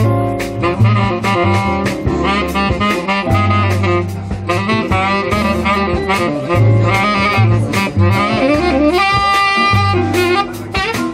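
Tenor saxophone playing a jazz melody live over upright bass and drums with cymbal strikes. About nine seconds in, the saxophone holds one long note.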